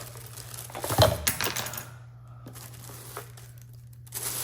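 Plastic trash bag rustling and crinkling as items are thrown away, with a thump about a second in as something drops into the bag, and a fresh burst of rustling near the end.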